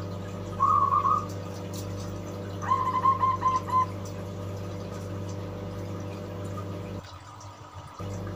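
Zebra dove (perkutut) cooing: one short note about half a second in, then a quick string of about six soft coos near three seconds in. A steady low hum runs underneath.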